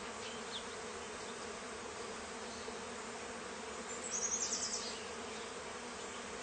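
Honey bee swarm buzzing: a steady, even hum from a mass of bees. About four seconds in, a brief rapid high-pitched trill stands out above it.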